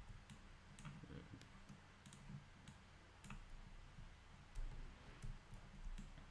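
Faint, irregular clicks of a computer mouse and keyboard as shortcuts are pressed and strokes are made, over a low steady hum.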